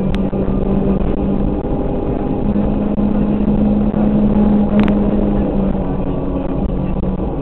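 Rally car's engine running hard at steady, high revs, heard from inside the cabin over road rumble, with a brief sharp click about five seconds in.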